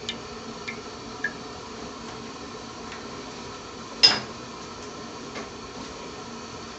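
A single sharp metallic clink against a large aluminium cooking pot about four seconds in, with a few faint ticks before it, over a steady low hum.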